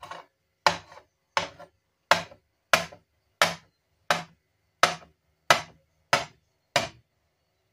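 Cleaver-style knife chopping through a rope of dough and striking the counter: about ten sharp chops, evenly spaced at roughly three every two seconds, each with a lighter tap just after, stopping about seven seconds in.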